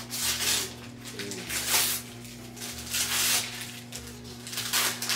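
Wrapping paper being torn off a gift box in four rips, a little over a second apart.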